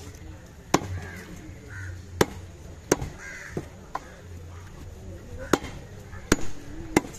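Long machete-style fish knife chopping through queenfish on a wooden block, with several sharp, irregularly spaced strokes. Birds call a few times in the background.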